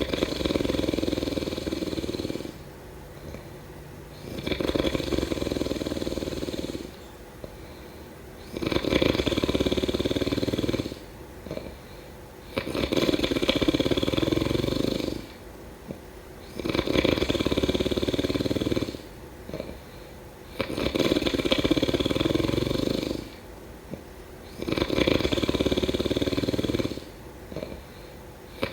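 Person snoring in an even rhythm: seven long snores, about one every four seconds, with quieter gaps between them.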